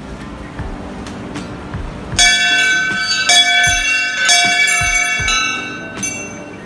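Hanging brass temple bell rung by hand, struck several times in quick succession from about two seconds in, its clear overlapping tones dying away about six seconds in.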